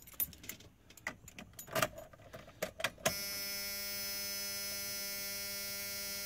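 Keys rattling and clicking in the ignition of a Dodge Cummins 12-valve diesel pickup. About three seconds in, a steady electric hum starts suddenly and holds at one pitch: the electric fuel pump running with the key on, while the engine does not start.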